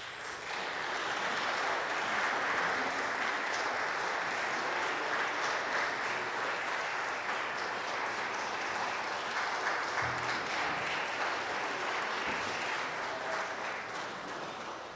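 Audience applauding in a large, echoing church. The clapping starts suddenly and dies away near the end.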